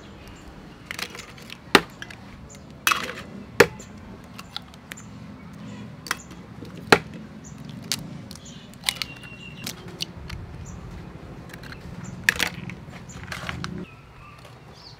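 Chicken eggs being cracked open one after another over a metal mixing bowl: a string of sharp, irregular shell cracks, several of them loud. A steady low hum runs underneath and cuts off suddenly near the end.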